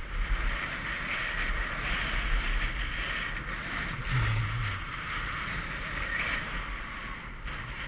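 A snowboard sliding and carving over packed snow, a steady scraping hiss, with wind buffeting the microphone as a low rumble.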